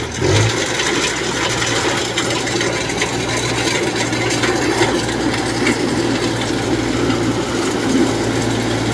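Kubota DC105X combine harvester running while it cuts rice: its diesel engine, fitted with a modified loud exhaust, runs steadily under a dense clatter of the cutting and threshing machinery.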